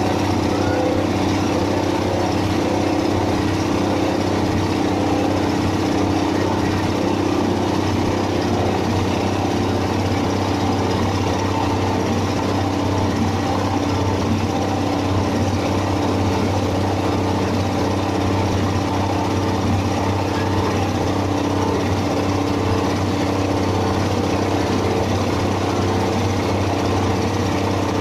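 Small stationary engine running steadily, driving a compost and grass chopping machine, with a constant low drone.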